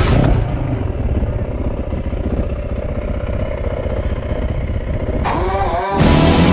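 Dirt bike engine running, muffled. Near the end the revs rise and fall.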